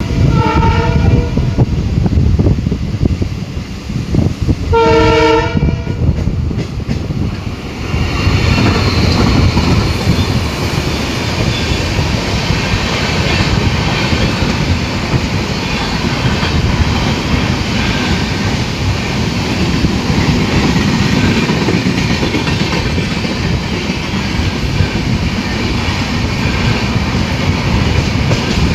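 Old diesel locomotive's horn sounding two blasts, one right at the start and a second about five seconds in. Then the steady rumble and clatter of wheels on the rails as the train runs at speed.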